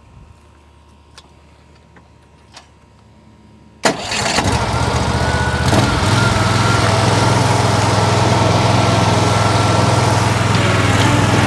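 The Z Spray Max stand-on spreader-sprayer's gas engine is started about four seconds in, catching at once and then running steadily, with a thin steady whine above the engine note. Before it starts there are only a few faint clicks.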